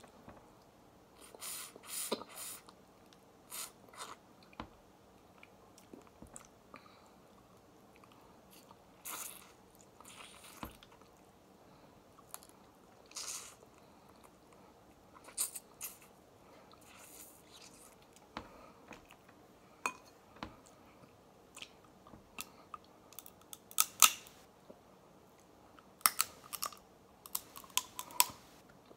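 Close-up eating sounds: snow crab meat being picked from the shell and chewed, with scattered short crackles and clicks of shell that come more often near the end.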